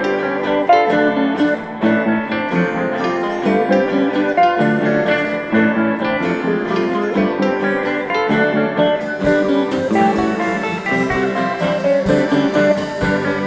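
Background music led by guitar, with plucked notes; a drum beat comes in about nine seconds in.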